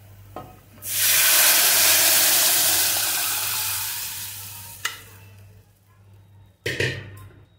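Boiled moong dal poured into hot mustard-oil tadka, hissing and sizzling loudly for about four seconds as it hits the oil, then dying away. A click, then a short knock and clatter near the end.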